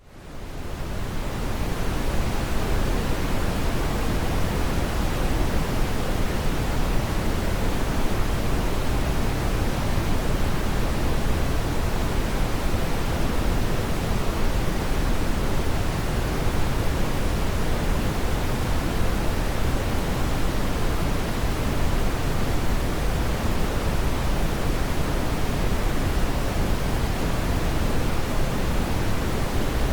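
Synthetic brown noise: a steady, deep hiss weighted toward the low end, with no tones or events in it. It fades in over about the first second and then holds level.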